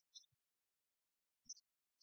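Near silence, broken by a few faint, short high-pitched blips and one faint low thump about one and a half seconds in.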